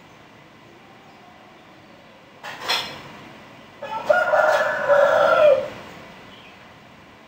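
A rooster crowing once, about four seconds in, a held call of roughly two seconds that falls away at the end. It comes after a brief noise about two and a half seconds in.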